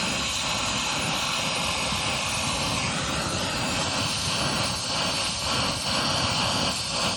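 A brazing torch flame burning steadily as it heats a copper line joint: a constant, even rushing hiss.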